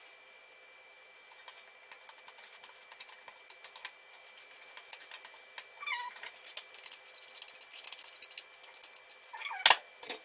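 Chopsticks clicking and scraping against a pot as cooking noodles are stirred: rapid light taps that grow busier after the first second or two, over a faint steady high tone. A short falling squeak comes about six seconds in, and a sharp clack near the end.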